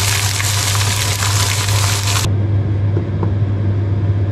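Fish fillets and garlic shallow-frying in butter in a pan, a steady sizzle that cuts off abruptly a little over halfway through. A steady low hum runs underneath.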